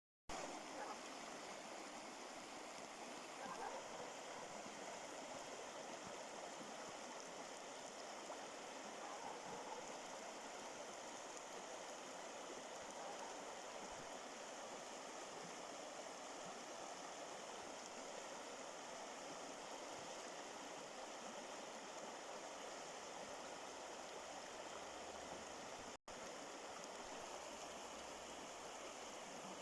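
A stream of running water, a steady even rush that breaks off for an instant near the end.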